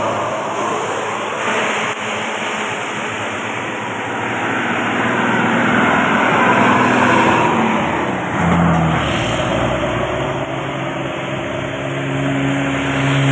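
A large bus going past with its engine running, amid traffic noise; a few low steady tones come in during the second half.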